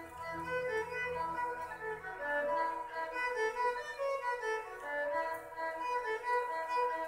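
A string orchestra playing, with violins carrying a melody of short, quickly changing notes. Low strings sound under them for the first two seconds, then drop out.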